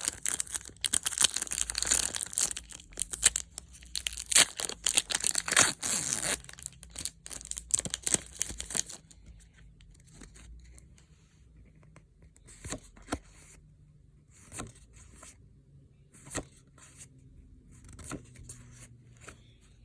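Foil booster pack wrapper torn open and crinkled for about nine seconds. Then scattered soft clicks and flicks as the trading cards inside are handled.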